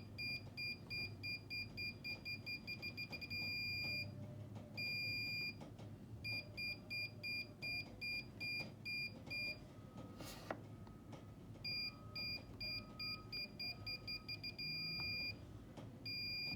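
Scanreco radio remote-control transmitter in test mode beeping a high tone. The beeps come faster and faster until they merge into one continuous tone, then drop back to slow, several times over, as a joystick is moved: the beep rate tracks the joystick's proportional travel, showing the function works. A click falls in a short pause about midway.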